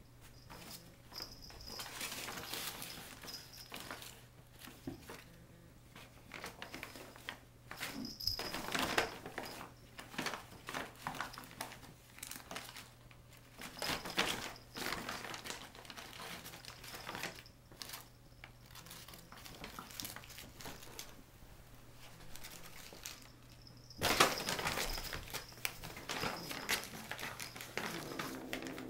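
A paper shopping bag crinkling and rustling in irregular bursts as two cats wrestle in and on it, with the loudest bout near the end.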